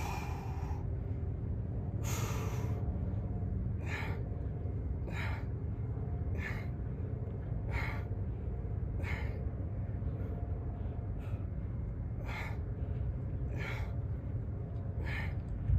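A man's sharp, effortful exhales, one with each crunch rep, about one every 1.2 seconds; the first two are longer. A steady low rumble runs underneath.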